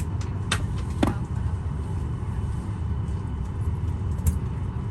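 Boeing 737-800 cabin noise: a steady low rumble, with a few short sharp clicks and knocks about half a second in, about a second in, and near the end.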